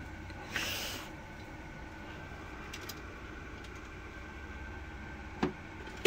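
Steady low room hum, with a short hiss about half a second in and a sharp knock near the end.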